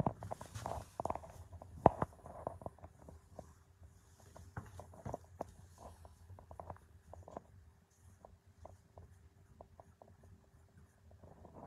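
Brush applying varnish to a floor: scratchy brushing and irregular light taps and clicks, with one sharp knock about two seconds in.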